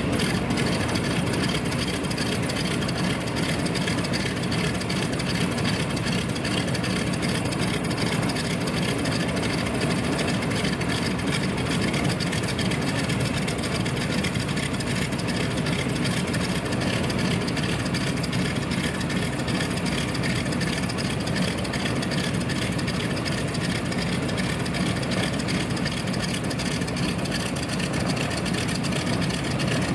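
Ford Trimotor's radial engines running steadily at idle.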